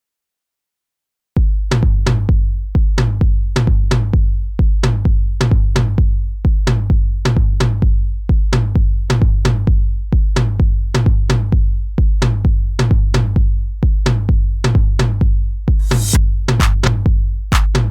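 Background electronic music with a steady drum-machine beat and heavy bass drum, starting abruptly after about a second and a half of silence.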